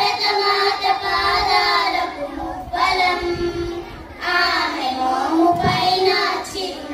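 A group of young girls singing together in three sung phrases, with short breaks about two and four seconds in.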